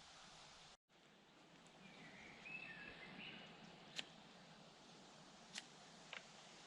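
Near silence: faint outdoor ambience with a brief, faint bird call about two and a half seconds in, and a few faint clicks in the second half.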